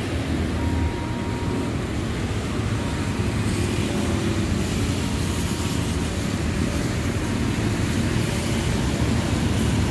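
Steady low rumble of road traffic mixed with a diesel locomotive-hauled passenger train approaching in the distance, growing slightly louder toward the end.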